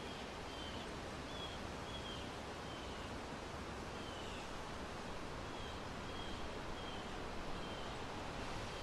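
Outdoor ambience: a steady rush of wind through leafy trees, with a songbird giving short, slightly falling chirps every second or so.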